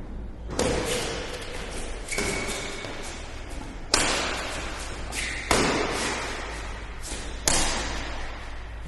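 Badminton rally in an indoor hall: rackets strike the shuttlecock five times, about one and a half to two seconds apart, each hit sharp and echoing. A couple of brief high squeaks come between the hits.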